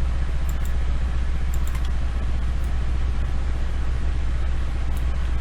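Steady low hum with a few faint, sharp clicks scattered through it.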